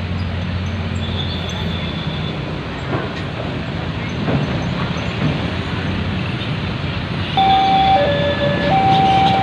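Steady rumble of passing road traffic, then from about seven seconds in a bus telolet horn starts up, stepping back and forth between two notes about every half second.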